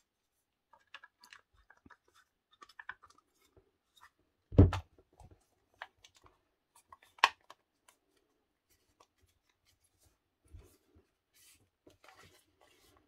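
Plastic clamshell housing of a Makita 8410BV drill being fitted together and handled: scattered light clicks and rustles, a solid knock about four and a half seconds in and a sharp click about seven seconds in.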